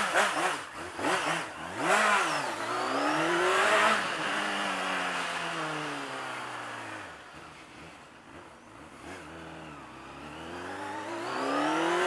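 Honda Hornet 600 inline-four motorcycle engine, its exhaust fitted with a 'boro' diffuser, revving. The pitch swings up and down at first, climbs to a loud peak, falls away slowly, and climbs again near the end.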